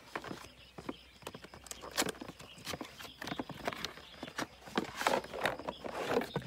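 A cardboard box being opened and handled: an irregular run of clicks, taps and rustles as the lid flap is lifted and a hard plastic case is slid out near the end.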